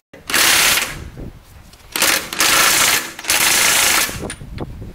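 Cordless electric impact wrench hammering on a wheel lug nut in several bursts of about half a second to a second, with short pauses between them. The nut is seized and does not break loose.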